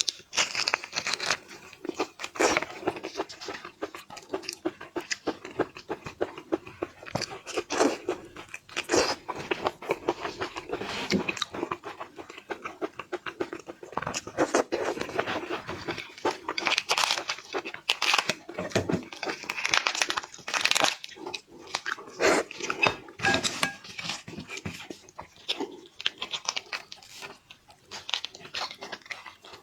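Argentine red shrimp being peeled and eaten: shells crackling and crunching, with chewing close to the microphone, in uneven clusters of sharp crackles.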